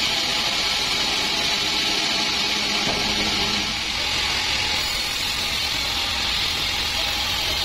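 Band sawmill running, its blade sawing through a teak slab: a steady mechanical whine and hiss, dropping slightly a little under four seconds in.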